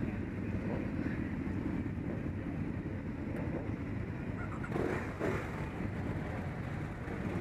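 Several motorcycle engines idling together, a steady low rumble, with a brief louder swell about five seconds in.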